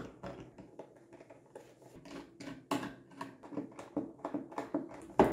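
Plastic covers being handled and pulled off a PC motherboard: a run of irregular clicks and rustles, with a sharper click at the start and another near the end.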